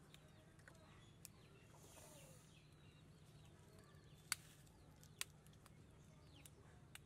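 Faint bird chirps over near silence, broken by two sharp taps about four and five seconds in: an egg being tapped against the rim of a steel mixing bowl to crack it.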